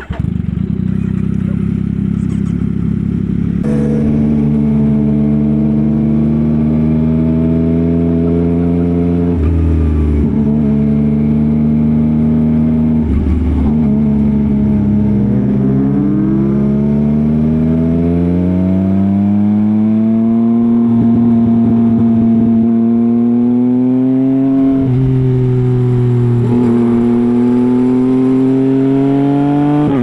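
Yamaha MT-09's 890 cc inline-three engine through a Revoc SP full exhaust system, ridden on the road. The engine note rises and falls with the throttle, with short breaks at gear changes and one long climb in pitch about halfway through.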